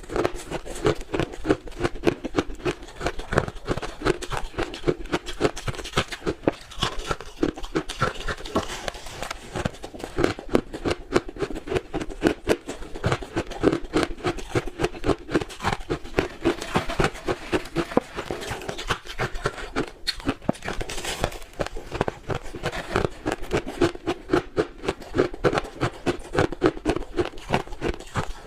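Close-up chewing of blended crushed ice: a dense, continuous stream of rapid crunches with a squeaky edge, in big bites.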